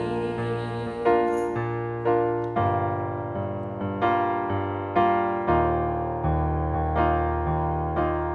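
Slow, gentle instrumental piano music: chords and notes struck about twice a second, each left to ring and fade.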